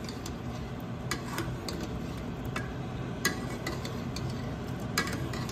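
Steel ladle stirring a thick potato and brinjal curry in an aluminium pot, with irregular clinks and scrapes of the ladle against the pot, the sharpest about three seconds in and again about five seconds in, over a low steady hum.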